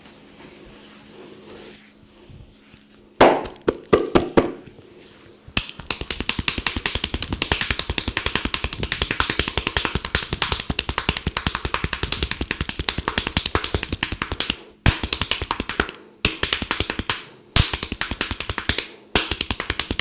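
Hands striking a person's head and back during a massage: a few loud slaps about three seconds in, then a fast rapid-fire run of slaps and chops that stops briefly several times near the end.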